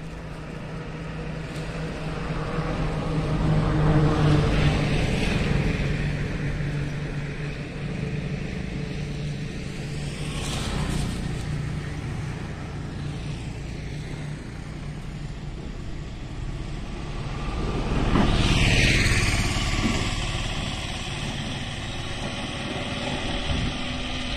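Road traffic: engine noise swells as a vehicle passes about four seconds in, and again around nineteen seconds in, this time with a whine that falls in pitch as it goes by.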